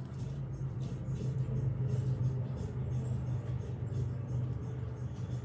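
A steady low hum with scattered light clicks and rustles.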